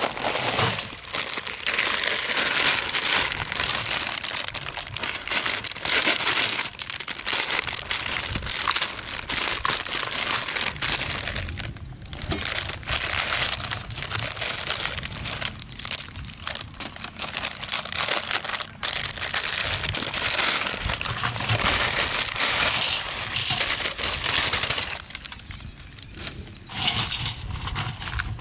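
Plastic Maggi instant-noodle wrappers crinkling as packets are opened and emptied, mixed with dry noodle cakes being handled and dropped into a steel bowl. The crinkling is dense and continuous, with a few short pauses.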